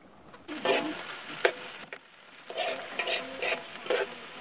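Short scrapes and knocks of a utensil against cookware, with two near the start and a quick run of several more in the second half.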